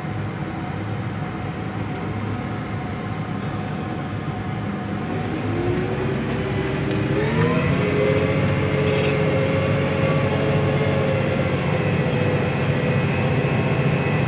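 Steyr Profi 6125 tractor's diesel engine running steadily while pulling a reversible plough, heard from the cab. About halfway through it revs up over a couple of seconds, then holds at the higher speed.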